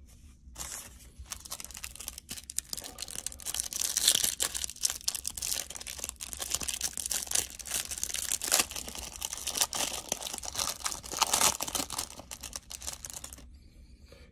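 Plastic wrapper of a Panini Prizm basketball cello card pack being torn open and crinkled by hand, a dense run of crackling that starts about half a second in and stops shortly before the end.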